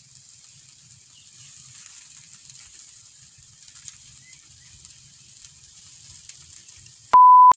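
Fish on bamboo skewers grilling over glowing embers: a faint sizzle with small crackles from the fire. Near the end a short, loud, steady electronic beep cuts in.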